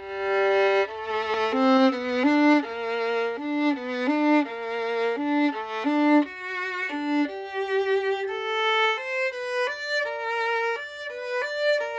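Solo violin playing a melodic passage, a string of bowed notes with vibrato that change pitch every half second or so.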